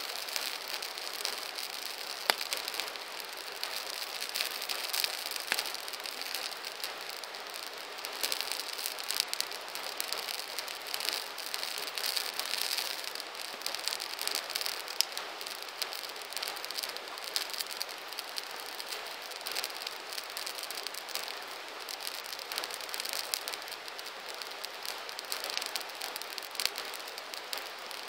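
Campfire burning, a steady crackle and hiss thick with small pops, with one sharper pop about two seconds in.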